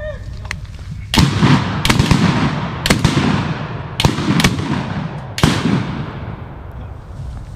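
A rapid volley of about six shotgun blasts spread over roughly four seconds, starting about a second in, each trailing off in a long echo: hunters shooting at mallards flying overhead.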